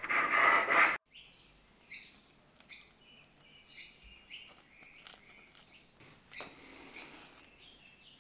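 A loud hissing noise for about the first second that cuts off abruptly, then faint bird chirps, short and high, repeating irregularly.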